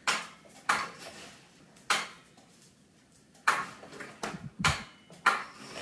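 A string of irregular clicks and knocks from a Pride Mobility Jazzy Select power chair being worked with its joystick, its drive engaged. A dull thump comes about four and a half seconds in.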